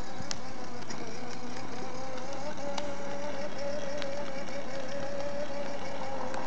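Electric motor of a child's battery-powered ride-on toy quad whining steadily as it drives along, with a few light clicks.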